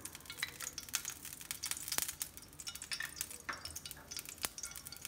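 Spoonful of cooking oil crackling and sizzling softly in a hot non-stick frying pan, with a few sharper pops.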